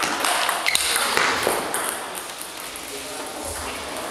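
Table tennis ball clicking off the rackets and the table in a rally, several quick clicks in the first second and a half, then the rally ends. Voices and other tables' play murmur in the echoing hall.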